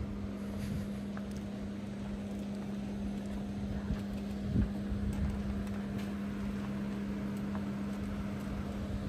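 Steady air-conditioning hum: a constant low droning tone over a low rumble, with a few faint clicks.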